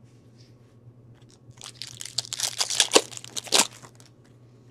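Foil wrapper of a hockey card pack crinkling and tearing as it is opened, a crackly rustle starting about a second and a half in and lasting about two seconds.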